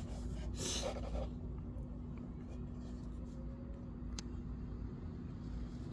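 Handling noise from a cardboard watch box: a brief rustle about half a second to a second in, and a single small click just after four seconds, over a faint steady hum.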